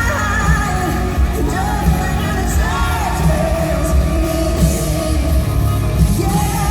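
Live band playing a country-rock song with a woman singing the lead melody in long held notes over a heavy, steady bass and drums.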